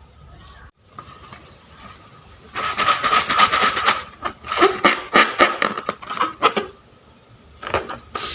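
Crunchy slime being squeezed and worked by hand: a dense run of crackles and small pops for about a second and a half, then a string of separate crackly squishes, and another short burst near the end.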